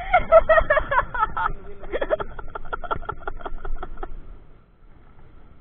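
A man's voice, then, about two seconds in, a quick run of chuckling laughter of about five short 'ha' pulses a second, which stops about four seconds in.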